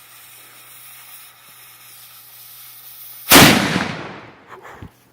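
Handmade signal cannon built as a miniature artillery piece: a fuse hisses steadily for about three seconds, then the cannon fires once with a loud blast that dies away over about a second and a half, followed by a couple of small knocks.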